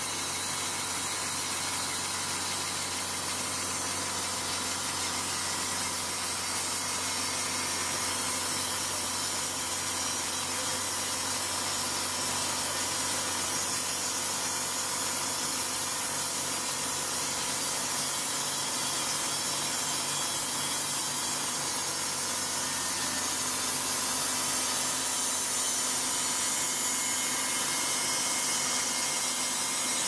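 Portable band sawmill running steadily, its engine and band blade cutting into a large log with a continuous hiss. It grows slightly louder over the stretch.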